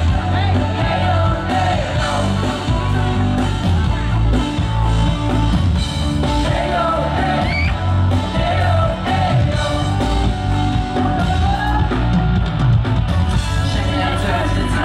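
Live band playing a pop-rock song, with a singer's voice carrying the melody over it.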